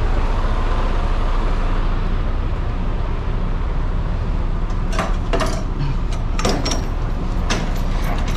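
Semi truck's diesel engine idling steadily, with a few sharp clicks and knocks in the second half.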